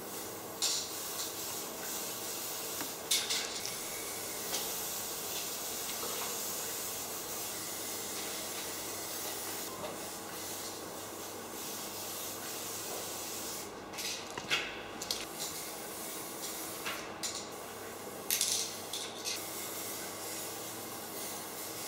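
A steady, spray-like hiss, broken now and then by short soft knocks and clicks.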